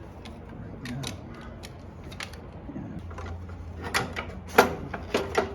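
Scattered sharp clicks and small rattles of hand work on motorcycle wiring, handling tools and small parts, with a cluster of louder clicks in the last second and a half.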